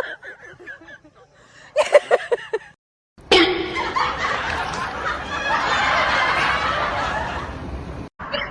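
Laughing in short pulsed bursts, then a brief gap. After it comes a sudden loud onset and about five seconds of dense, noisy group commotion that cuts off abruptly near the end.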